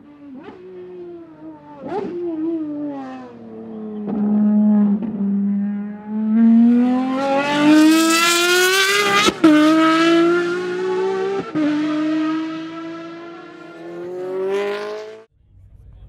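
Ferrari FXX Evo's V12 engine on track: it comes down through the gears, the note falling, with sharp cracks on the downshifts. It then accelerates hard, the pitch climbing with two quick upshifts, and is loudest about halfway through. The sound cuts off suddenly near the end.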